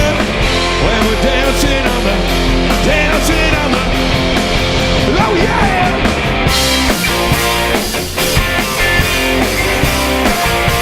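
A live three-piece band playing an upbeat rock-styled cover. The music is loud and steady, and the high cymbals open up brighter about two-thirds of the way through.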